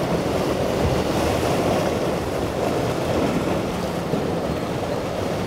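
Wellcraft center-console boat's twin Yamaha 200 outboards running steadily as the hull pounds and splashes through choppy inlet waves, with surf and wind buffeting the microphone.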